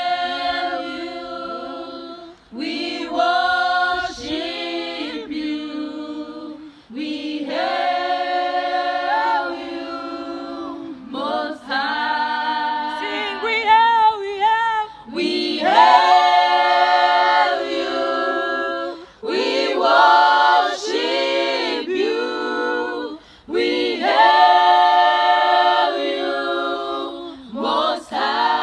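A group of women singing a worship song a cappella, unaccompanied, in phrases of about four seconds with short breaks for breath between them.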